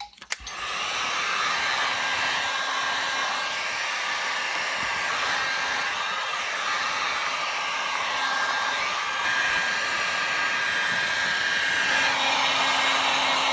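Electric heat gun blowing steadily, shrinking vinyl tint film onto a headlight. It switches on about half a second in and runs at an even level, with a faint steady whine over the airflow.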